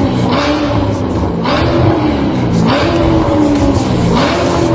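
Chevrolet Corvette C7's 6.2-litre V8 being blipped while stationary through an ARMYTRIX cat-back valvetronic exhaust: four quick, loud revs about a second apart, each rising sharply and then falling back toward idle.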